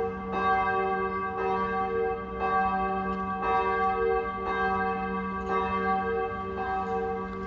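Church bell tolling, struck about once a second, each stroke ringing on into the next.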